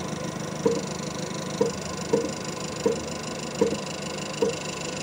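Ghost Gunner CNC mill's spindle humming steadily with an edge finder in it, while the table is jogged toward it in 0.01 mm steps: about six short stepper-motor chirps, each under a second apart.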